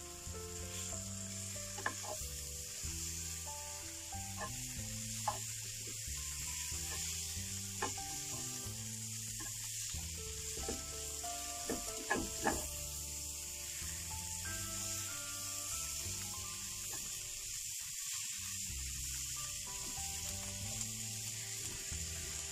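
Spinach stir-frying in a nonstick frying pan: a steady sizzle while a spatula stirs and turns the greens, with a few sharp knocks of the spatula against the pan and a quick cluster of them about twelve seconds in.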